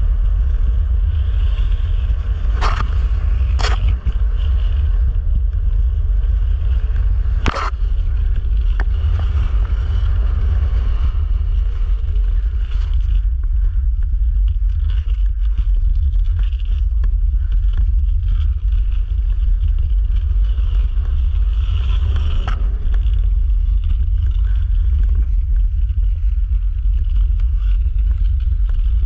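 Wind rumbling on the action camera's microphone while gliding on clear lake ice under a wing sail, with a faint hiss of skate blades on the ice. A few short sharp clicks about three, four, eight and twenty-two seconds in.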